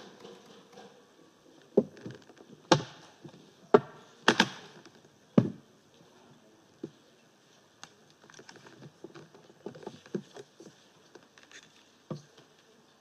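Scattered knocks and taps over quiet room tone: several sharp ones in the first half, then fainter, irregular clicks.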